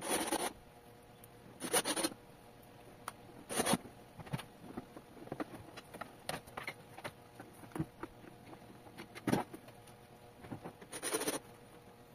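Cordless screwdriver driving screws into the plastic base of an air fryer in five short bursts of about half a second each, with small clicks and knocks of handling between them.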